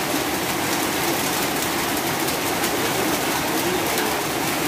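Heavy rain falling steadily, a dense, even hiss with no breaks.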